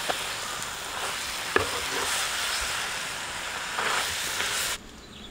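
Pork pieces sizzling in hot oil and dark sauce in a pan while being stirred with a wooden spatula, with scraping and a sharp knock of the spatula against the pan about one and a half seconds in. The sizzling cuts off suddenly near the end.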